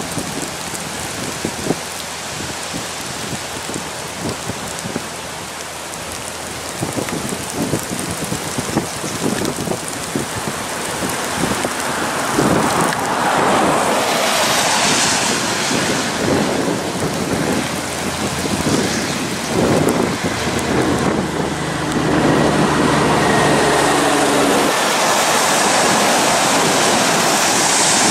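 Steady rain with wind buffeting the microphone. From about halfway a heavy truck's engine and tyre noise on the wet road grow louder, and near the end the truck passes close by, its tyres hissing through the spray.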